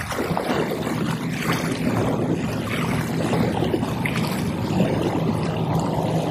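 Distant light aircraft's propeller engine running with a steady drone, mixed with wind buffeting the microphone.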